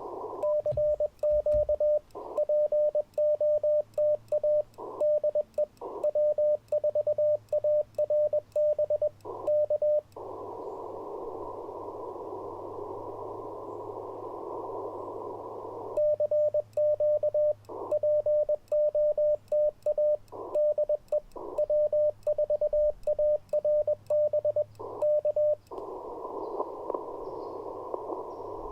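Morse code sidetone from an Icom IC-705 transceiver as a CW paddle keys two runs of code, each about ten seconds long. The runs are a steady mid-pitched tone switched on and off in dits and dahs. Between them, and again near the end, the radio's receiver band noise is heard as a steady hiss.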